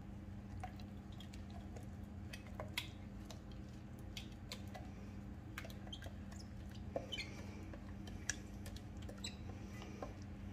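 Silicone spatula scraping thick ground paste out of a steel mixer-grinder jar into a steel bowl: scattered soft scrapes, clicks and small squeaks, over a steady low hum.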